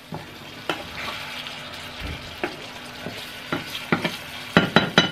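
Food frying and sizzling in a hot pan while being stirred, the utensil clicking and scraping against the pan, with a quick run of clicks near the end.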